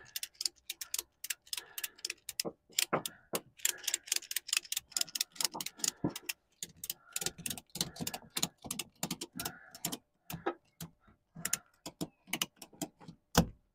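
Ratchet tie-down strap being cranked tight: quick runs of sharp clicks from the ratchet mechanism, thinning out after about ten seconds and stopping near the end as the strap comes up to tension.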